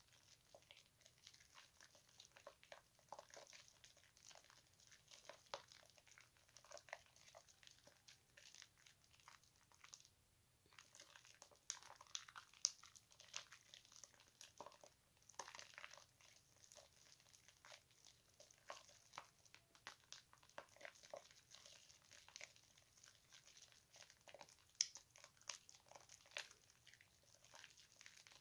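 Thick bar-soap lather squeezed and worked in wet hands: faint, irregular wet squishing and crackling of foam, pausing briefly about ten seconds in.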